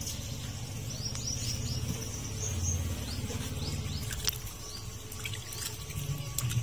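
Small birds chirping in quick runs of short, high, falling notes, over a low rumble that drops away about four seconds in; a single sharp click comes just after the rumble stops.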